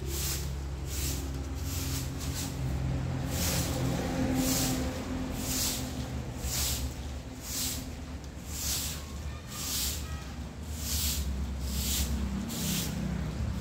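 Soft broom sweeping dry leaves across outdoor ceramic tiles: a hissing swish with each stroke, about one a second, over a faint steady low hum.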